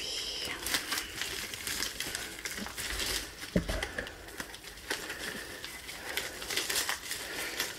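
Plastic packaging crinkling and rustling under the hands as a wrapped diamond painting canvas is opened and smoothed flat, with many small crackles.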